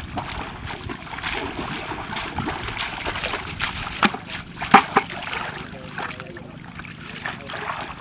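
Water splashing and sloshing unevenly, with a few sharper splashes about four to five seconds in.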